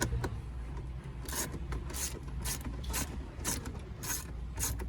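Hand ratchet turning out dash bolts, its pawl rasping in short bursts on each back-stroke about twice a second.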